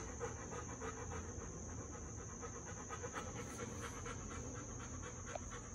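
Bernese mountain dog panting steadily, a quick, even rhythm of short breaths.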